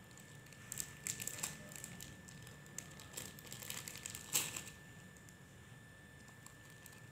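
Samoyed dog licking and biting at a frozen ice-cream bar: a quick run of small clicks and crackles for about four seconds, the loudest near the end, then it stops.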